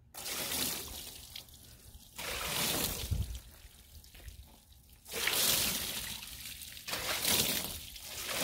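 Water poured from a bucket splashing and trickling over a riding mower's engine in several surges, the loudest starting about five seconds in, rinsing degreaser off the engine.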